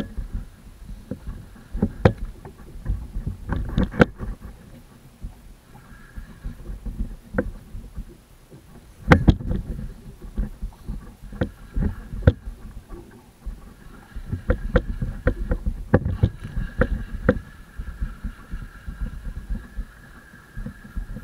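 Water lapping and slapping against a kayak's hull right by the microphone, a low churning rumble broken by irregular sharp knocks and splashes.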